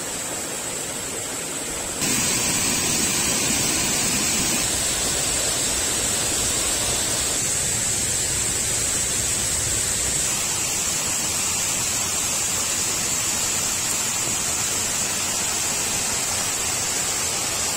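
Steady hiss of water, growing a little louder about two seconds in, with a faint steady high tone on top.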